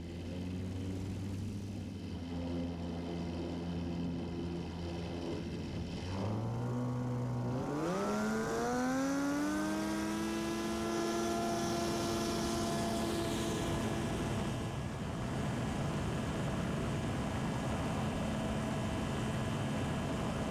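Zenith 750 Cruzer light aircraft's Viking 130 engine and propeller, heard sped up to double speed: running steadily at low power at first, then rising in pitch from about six seconds in as the throttle opens for the takeoff run, and settling into a steady higher note at climb power.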